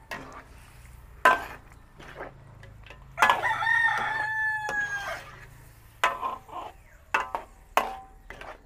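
A rooster crows once, about three seconds in, a single call of about two seconds that falls slightly in pitch at the end. A metal ladle knocks and scrapes against a large metal wok as a thick stew is stirred, in sharp clicks before and after the crow.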